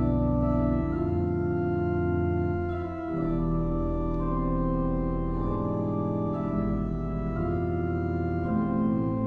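Organ music: sustained chords over deep held bass notes, moving to a new chord every second or two, with a brief dip in loudness about three seconds in.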